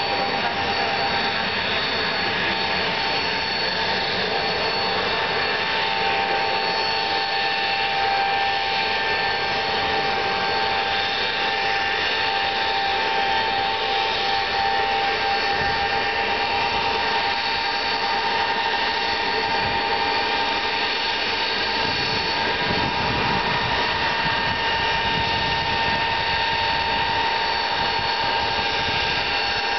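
Tupolev Tu-154M airliner taxiing, its three rear-mounted Soloviev D-30KU-154 turbofans running steadily at taxi power: a continuous jet rush with several high steady whine tones, and a deeper rumble filling in during the second half as the aircraft comes closer.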